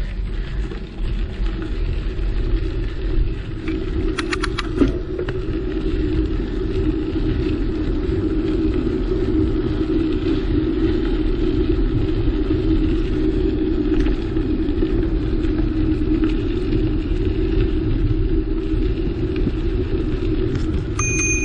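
Steady rumble of a moving bicycle's tyres on a crushed-gravel path, mixed with wind buffeting the microphone. There is a brief clatter of clicks about four seconds in and a short high ringing tone near the end.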